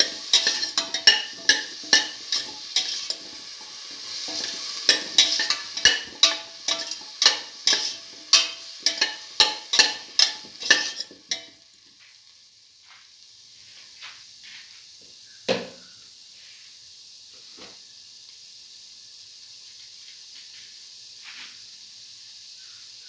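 Slotted metal spoon stirring and scraping potato pieces, shallots and garlic frying in oil in a metal pan, about two strokes a second over a sizzle. The stirring stops about halfway through, leaving a faint sizzle, with a single sharp knock a few seconds later.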